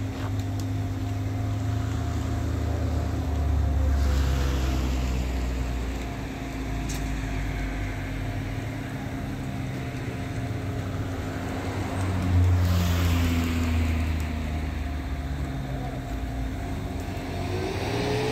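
A motor vehicle's engine running, its low hum shifting in pitch a few times, with a rushing sound that swells and fades about four seconds in and again near twelve seconds.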